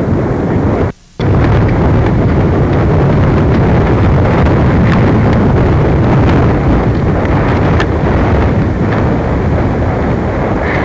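A loud, steady low rumble, strongest in the bass, broken by a short dropout about a second in.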